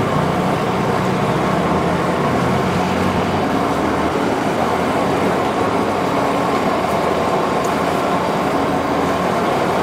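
Steady street traffic noise, vehicles running past in a continuous wash of sound with no distinct events.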